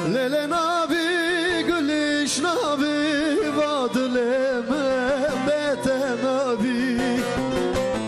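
A man singing a Kurdish folk song in a wavering, ornamented line over a bağlama's plucked accompaniment. The voice stops about six and a half seconds in, leaving the bağlama playing alone.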